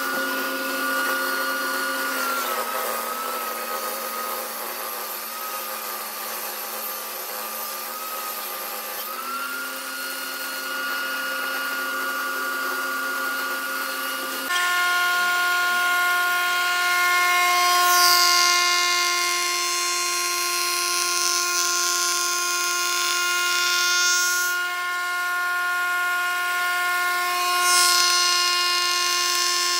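Electric bench woodworking machine running with a steady motor hum that sags slightly in pitch for several seconds under load. Later its cutter takes a wooden door panel fed across it by hand, with louder spells of cutting noise in several passes.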